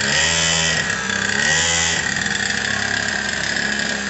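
Small 50cc kids' motorcycle engine running. It is revved briefly twice in the first two seconds, then settles back to a steady idle.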